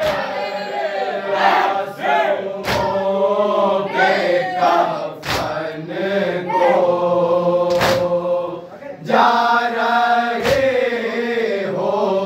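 A group of men chanting a noha (Urdu mourning lament) together, with a sharp slap of hands striking chests (matam) five times, about every two and a half seconds, in time with the recitation.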